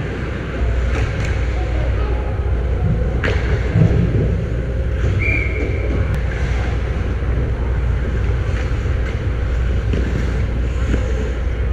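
Ice hockey game sound: skates and sticks on the ice over a steady low rumble. There are a couple of sharp stick or puck cracks a few seconds in, and a brief steady high tone about five seconds in.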